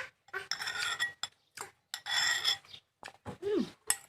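Cutlery clinking and scraping against a dish in two longer bursts, with a few short clicks and a brief falling voice sound near the end.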